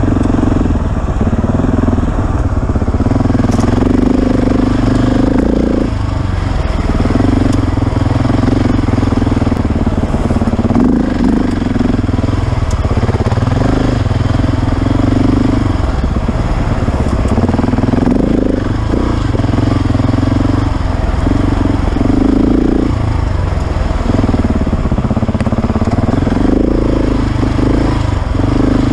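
KTM 690's single-cylinder four-stroke engine under a rider on a dirt trail, pulling hard and easing off over and over, its note dipping briefly every few seconds as the throttle closes.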